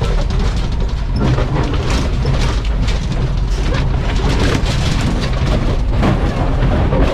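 Fire truck's engine running as the truck drives over rough ground, with a steady low rumble and many rattles and knocks. A hiss runs through it that sounds like a gnarly air leak in the truck's air system.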